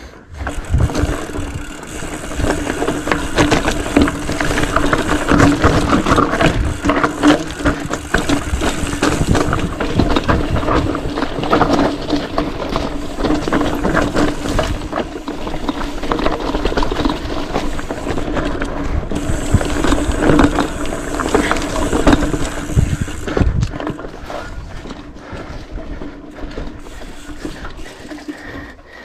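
Mountain bike rattling and clattering down a rough dirt trail at speed, its frame, chain and wheels knocking over bumps, with a steady hum underneath. It eases off somewhat near the end.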